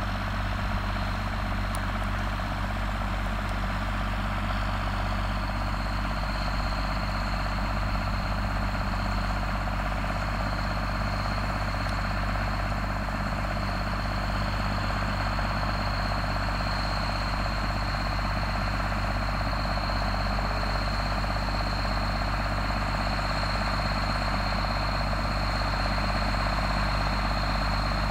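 Case MX 110 tractor's diesel engine running steadily as it works across the field spreading slurry through an umbilical hose, growing slightly louder as it approaches. A thin high whine joins the engine note about five seconds in.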